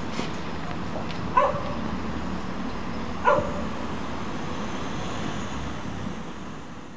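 Steady street noise, with two short pitched calls about two seconds apart.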